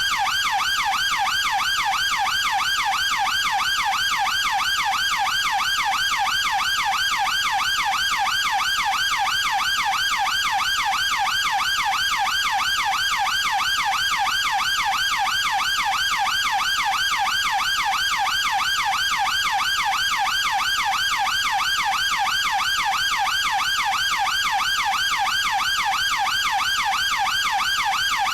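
UK police car siren sounding continuously in a fast rising-and-falling warble, the pitch sweeping up and down several times a second without a break.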